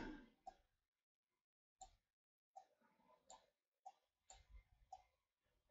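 Near silence, with about eight faint, short clicks scattered through it from the computer's controls being worked.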